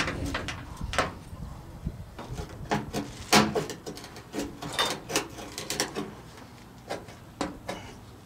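A flat steel blade scraping and prying at a rusted strip on the bare sheet-metal top of a 1963 Ford Thunderbird door, giving irregular metallic scrapes and clicks, a few with a brief ring.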